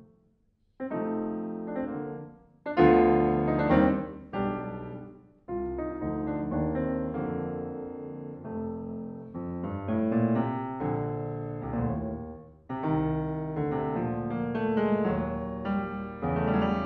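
Fazioli concert grand piano played solo: after a moment's silence at the start, phrases of chords and runs separated by brief breaks. The loudest chords come about three to four seconds in.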